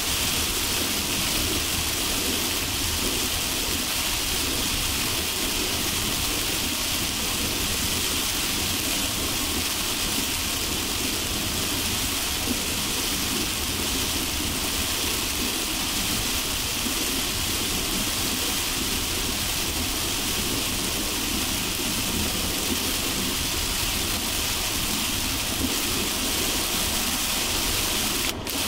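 Heavy rain pelting a car driving on a highway: a steady hiss of rain over the low rumble of the car's tyres and engine, with a momentary break near the end.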